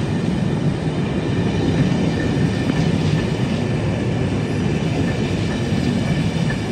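A rake of passenger coaches rolling past on the rails: a steady running noise of wheels on track, heaviest in the low end.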